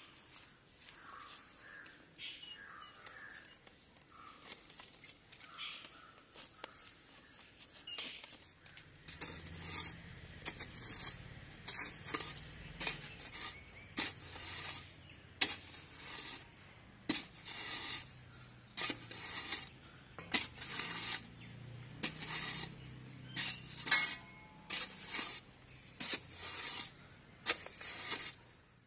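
Faint rustling of leaves being cut and stripped from a branch, then a small metal spade digging into sandy soil. From about nine seconds in it strikes and scrapes roughly once a second, with a low hum underneath.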